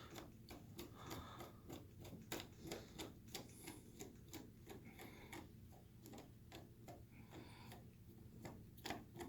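Faint, irregular clicking of a Phillips screwdriver working a small screw out of a deadbolt, about three or four light ticks a second.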